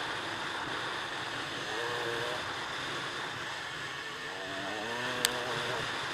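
Dirt bike engine running under way on a trail, its pitch rising and falling with the throttle over a steady rush of noise, with one sharp click about five seconds in.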